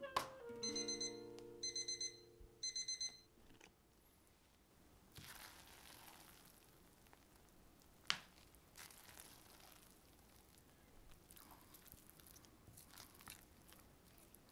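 Digital kitchen timer beeping in three quick bursts about a second apart, over the last held chord of background music, marking that the dough's rise is done. Then faint sounds of the sticky risen batter being pulled and stirred with a spatula, with one sharp click about eight seconds in.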